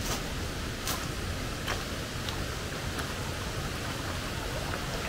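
Steady rush of a shallow stream, with a few short sharp splashes in the first three seconds as feet wade through the water.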